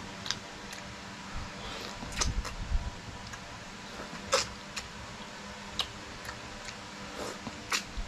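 Close-miked chewing and mouth sounds: irregular sharp wet clicks and lip smacks about a second apart, with a few low soft thumps midway.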